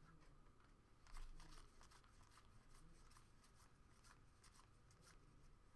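Near silence with faint rustling and light clicks of trading cards being handled and flipped through, a little louder about a second in.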